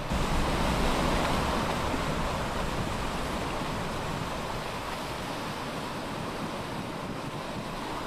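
Ocean surf and wind: a steady rushing wash of waves that jumps louder right at the start, then slowly eases off.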